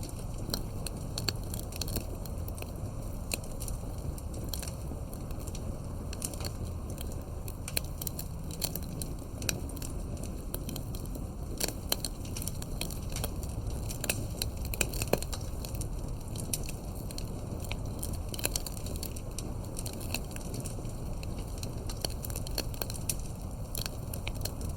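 Fire crackling: irregular sharp snaps and pops over a steady low rush of burning.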